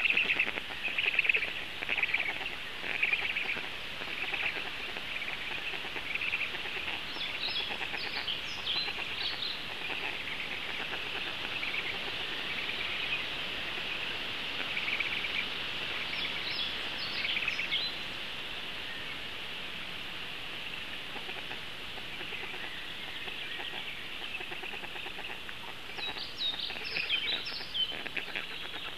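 Forest birdsong: a run of loud, quickly repeated calls at the start, then a songbird's short high phrases coming back three times over a steady high background of birds.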